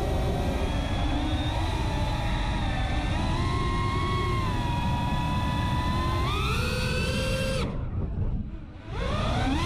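CineLog35 FPV quadcopter's motors and propellers whining, the pitch shifting with the throttle. The whine rises about six seconds in, drops away sharply for about a second as the quad flips over on cut throttle, then spools back up near the end.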